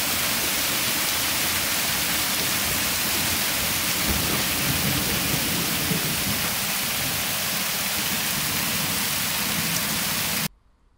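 Heavy rain pouring down onto pavement and parked cars, a dense steady hiss with a low rumble swelling about halfway through. It stops abruptly near the end.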